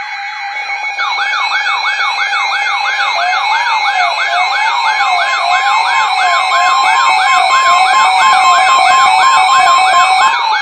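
Several electronic siren tones layered together, warbling quickly at about three cycles a second. A slower wailing siren joins about three seconds in, and a steady alert tone near 1 kHz starts about four seconds in, typical of a weather radio's warning attention tone.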